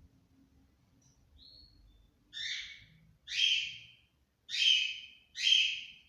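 Bird calling: a faint short note, then four harsh calls, each about half a second long and roughly a second apart.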